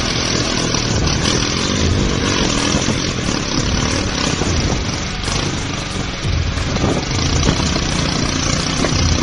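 A motor vehicle engine running loudly and continuously.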